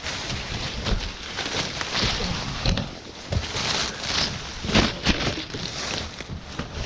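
Rustling and crunching of undergrowth and a ghillie suit as the wearer moves through vegetation, with scattered sharp snaps, the loudest just before five seconds in.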